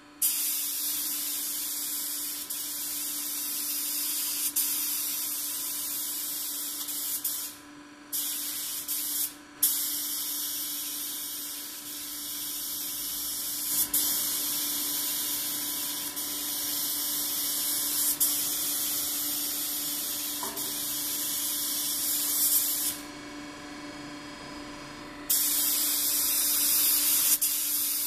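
DeVilbiss GTi Pro spray gun hissing as it sprays air and 2-pack base coat, the trigger let off for a moment twice about a third of the way in and for about two seconds near the end. A faint steady low hum runs underneath.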